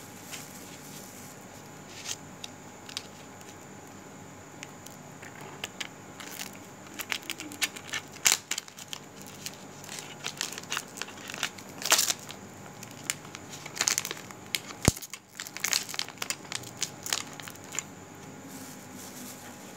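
Irregular crackling and rustling close to the microphone, with scattered sharp clicks that grow thickest through the middle. A faint steady hum sits underneath.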